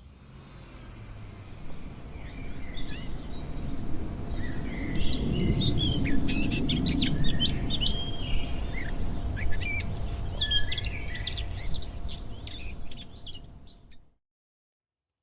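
Many songbirds chirping and trilling over a low rumbling background, swelling up over the first few seconds, then cut off abruptly about a second before the end.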